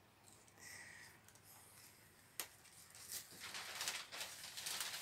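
Paper plant-packaging rustling and crinkling as it is handled, loudest in the last couple of seconds, with a sharp click about halfway through. A short faint high chirp sounds about a second in.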